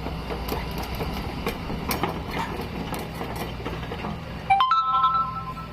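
Heavy diesel engine running steadily, with scattered metallic clicks and knocks. About four and a half seconds in, a loud horn sounds once for about a second.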